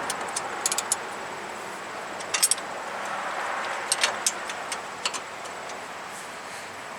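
Hand wrenches clinking and tapping on a nut and bolt as it is turned: scattered sharp metallic clicks in small clusters, with pauses between.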